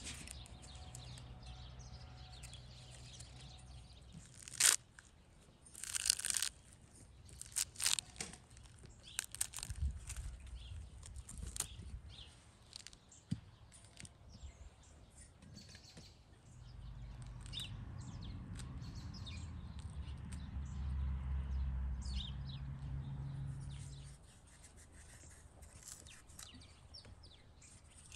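A ripe pomegranate is scored with a knife and pulled apart by hand: a run of sharp cracks and tearing of the rind in the first half. Birds chirp faintly throughout, and a low rumble comes in later.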